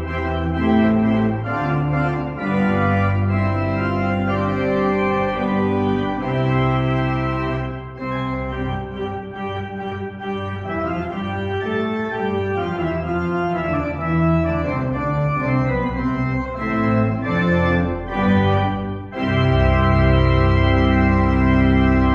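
Church pipe organ playing a prelude: sustained chords under a moving line, softer through the middle. About nineteen seconds in it swells into a full, loud held chord with deep pedal bass.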